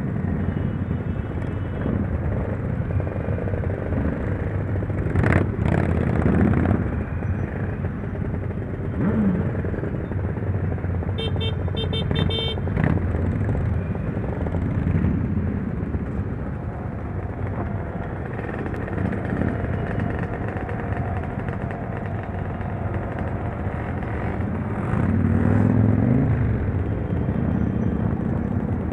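Motorcycle engines running on a mass ride, a steady low engine and road noise with revs rising and falling now and then. About eleven seconds in comes a short run of rapid, repeated high tones.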